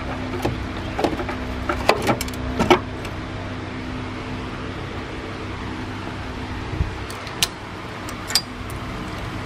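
Hard plastic cowl cover being pressed and seated into place, giving a few sharp clicks and knocks in the first three seconds and a few more near the end, over a steady low hum.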